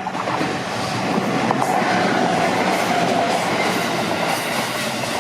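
Chūō Main Line train passing over a level crossing, getting louder over the first second or so, its wheels clacking over the rail joints. The crossing's warning bell rings as a steady tone beneath the train noise.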